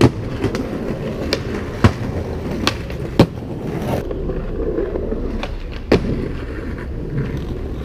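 Skateboard wheels rolling over stone paving tiles with a steady rough noise, broken by about six sharp clacks of the board striking the ground. The loudest clacks come about two and three seconds in, and another near six seconds.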